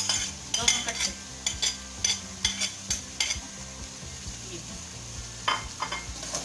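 A utensil clinks and scrapes against a plate and a steel cooking pot as fried bitter gourd and sliced onions are tipped in and stirred, over a faint sizzle from the pot. The knocks come thick and irregular for the first few seconds, then thin out, with a few more near the end.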